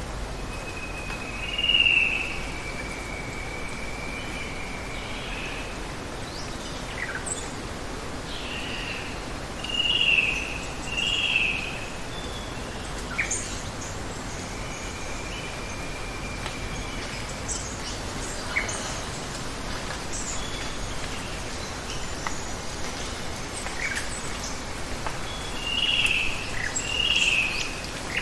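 Forest ambience: a steady hiss of running water, with birds calling over it in short slurred calls. The loudest calls come about two seconds in, in a pair about ten seconds in, and in a pair near the end. Long, thin, steady insect-like notes and scattered brief high chirps sound between them.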